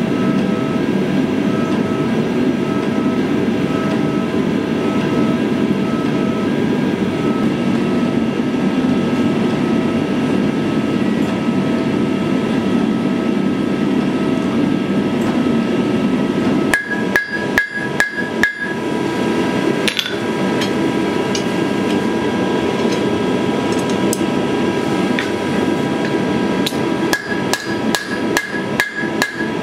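A steady mechanical roar for the first half. About seventeen seconds in it gives way to hand-hammer blows on hot steel over an anvil, each with a bright ring: a quick run of about six, a single blow a little later, then even hammering near the end at about three blows a second.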